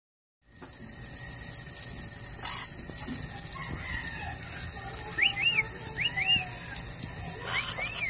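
A thin stream of water splashing steadily onto wet concrete while a white-crowned parrot bathes in it. A few short, high, rising-and-falling chirps come twice in the second half and again near the end.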